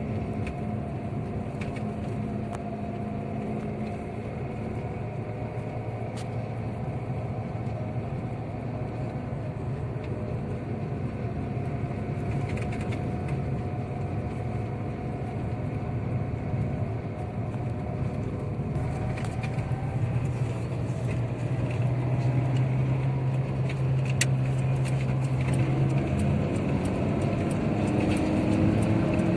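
Car driving along a road, heard from inside the cabin: a steady engine hum with tyre and road noise, the engine note shifting as the speed changes and getting a little louder in the last third.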